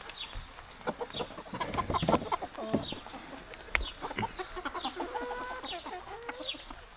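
Several hens clucking and calling over one another, with repeated short, high, falling chirps throughout and a few light knocks.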